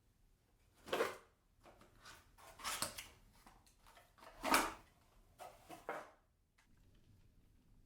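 Hands handling objects in a small room: a string of short scrapes and knocks, the loudest about a second in, near three seconds and about four and a half seconds in, with lighter ones between and after.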